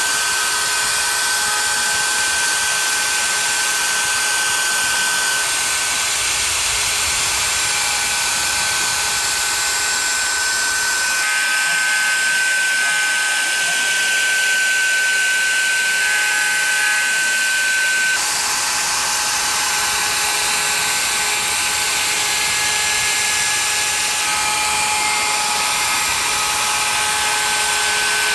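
CNC Shark HD4 router spindle running at a steady high whine as its small end mill cuts a pocket into walnut. The tone shifts abruptly about 11 and 18 seconds in.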